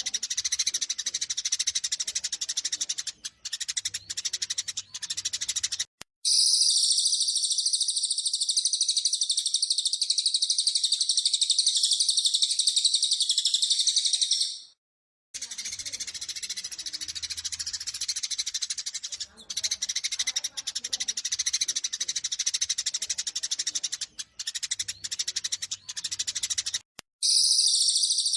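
Eurasian tree sparrows' fighting chatter, a dense run of sharp repeated chirps, alternating with a continuous high, fast trill. This is a looped bird-training recording. The trill runs from about six seconds in to about fourteen; after a brief gap the chirping resumes, and the trill starts again near the end.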